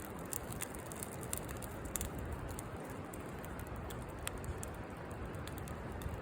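Campfire burning, with irregular sharp crackles and pops, several close together in the first two seconds and sparser after, over a steady low rumble.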